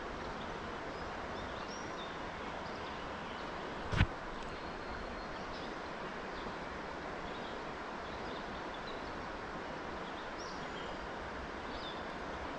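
Steady rush of flowing stream water with scattered faint bird chirps, and a single sharp knock about four seconds in.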